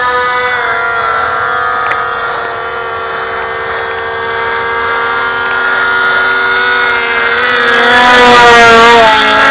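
Radio-controlled foam F-22 model planes flying, their motors and propellers making a steady pitched whine that drifts up and down in pitch. A second, lower tone joins and the sound grows louder near the end as a plane comes closer.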